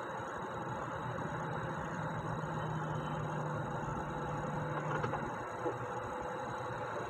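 Heavy truck's diesel engine and road noise heard from inside the cab, a steady drone with a low hum for a few seconds. A small click about five seconds in, and a short knock just after.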